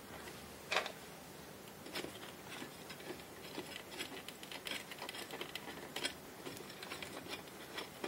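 Faint, scattered small clicks and rustling as fingers twist a plastic wire nut onto spliced wires and handle them in the fan's metal switch housing, with a few sharper clicks, the clearest about a second in.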